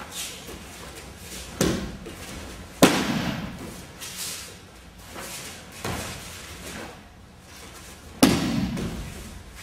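Aikido breakfalls: thrown partners land on tatami mats, and bodies and hands slap the mat. There are several sharp impacts, the loudest about three seconds in and another near the end, each trailing off briefly in the hall.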